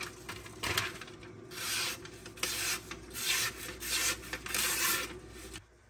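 A knife blade being stropped on a leather strop loaded with diamond compound: a series of short, hissing rubbing strokes, about one a second, that stop near the end.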